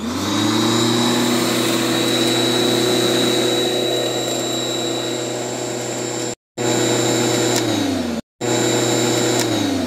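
Ryobi 13-inch 11-amp corded electric lawn mower's motor and blade spinning up and running with a steady whine, broken off abruptly twice for a moment. Near the end it winds down in pitch as the hand lever is released.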